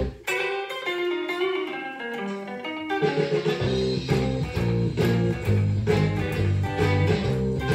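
Fender Telecaster electric guitar played through a Blackstar amp with a digital delay, picking a line of single notes. A low bass line with a steady beat joins about three and a half seconds in.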